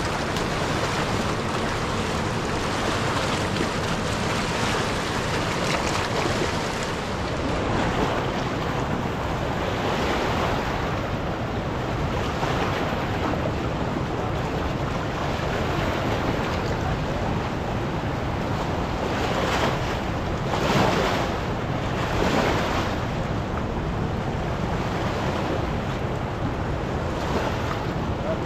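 Steady rushing of river water with wind buffeting the microphone, swelling briefly about two-thirds of the way through.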